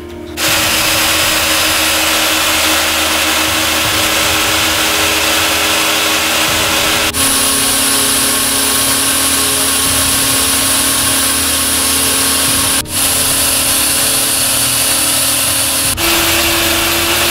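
Insecticide fog generator running steadily, blowing a dense fog of an irritant insecticide through the room to drive cockroaches out of hiding. The even motor-and-blower noise breaks off and resumes abruptly three times, with its hum changing pitch slightly each time.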